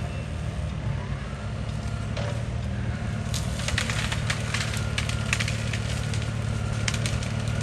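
Case CX80C excavator's diesel engine running steadily while it pushes a tree over; from about three seconds in, wood cracks and snaps in a string of sharp splintering cracks.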